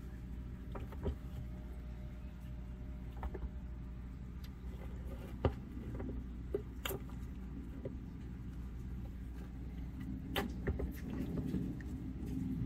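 Scattered sharp clicks and taps a few seconds apart over a steady low hum: eastern box turtles and American toads knocking claws, shells and jaws on a metal feeding tray as they eat superworms.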